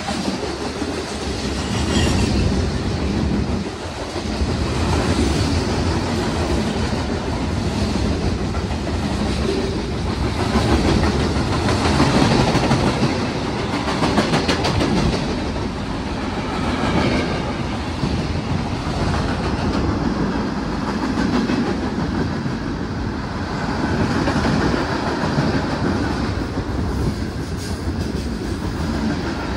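CSX freight train passing close by at speed, its boxcars rolling past in a steady rumble with the wheels clacking over the rail joints.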